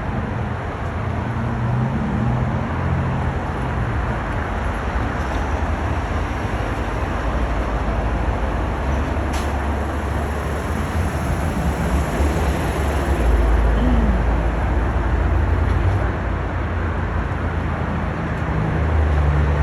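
Steady road-traffic noise with a deep rumble of passing vehicles, swelling louder around the middle and again near the end.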